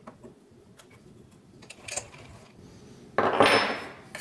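Light metal clicks and taps from the lathe chuck and its key, then about three seconds in a loud metal-on-metal clatter and scrape lasting under a second as the chuck slides off the mini lathe's spindle.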